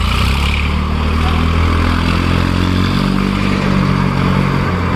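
Swaraj 744 FE tractor's three-cylinder diesel engine running under load as the tractor climbs a ramp onto a loading platform. The engine note is steady and loud.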